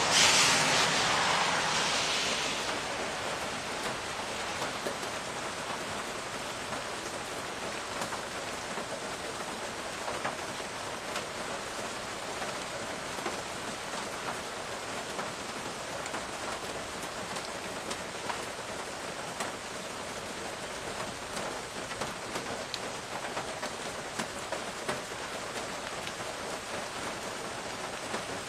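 Steady rain falling, an even hiss with many close drops ticking. A louder rush of hiss swells at the very start and fades over the first two seconds.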